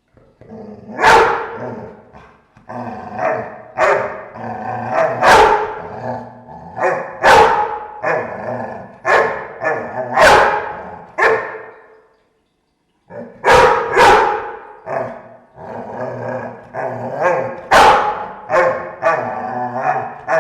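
Dogs growling continuously, broken every second or two by sharp, loud barks. The growling stops for about a second around the middle, then resumes.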